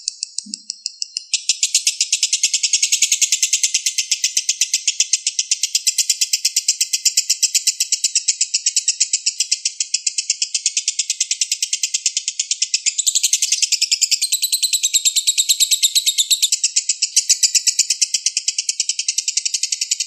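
A lovebird singing one long, unbroken trill: a rapid run of evenly spaced, high chattering notes. It gets louder about a second in.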